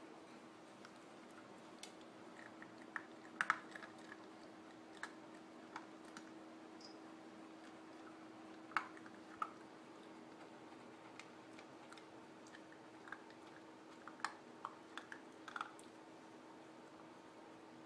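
A puppy eating dry kibble from a bowl: faint, irregular crunches and clicks as it chews, over a low steady hum.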